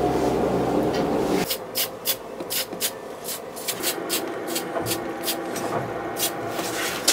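A rubbing noise as the wooden board is handled on the stool for about the first second and a half. Then an aerosol spray can hisses in short bursts, two or three a second, spraying a glossy finish onto the wooden board.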